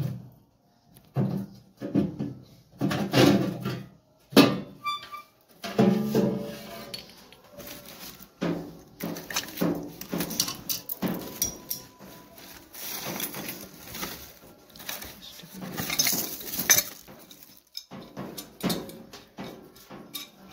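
Sheet-metal cover of a gas water heater clanking and rattling as it is handled and lifted off, in irregular knocks with a sharp one about four seconds in.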